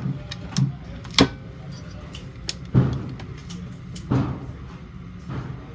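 Scoped break-open single-shot pistol being handled on a shooting rest, its action closed: about five sharp metallic clicks and knocks, the loudest about a second in, some with a dull thump.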